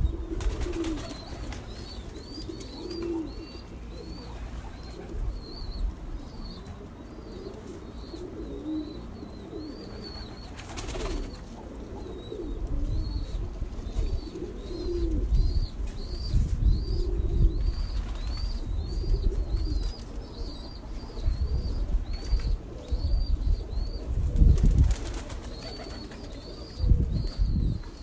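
Pigeons cooing in repeated low phrases, while a small bird gives a steady series of short, high chirps about twice a second. Low rumbles and thuds come and go, loudest near the end.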